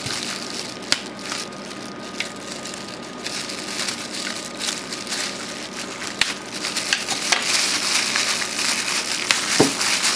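Plastic wrapping and packing tape crinkling and rustling as a pocket knife cuts through the tape, with a few sharp clicks. The crinkling gets louder in the last few seconds as the plastic bag is pulled open.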